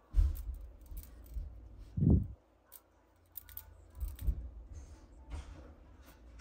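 Pencil strokes scratching on drawing paper in short, quick sketching lines, with soft low thumps from the hand on the paper and desk. One louder low puff comes about two seconds in.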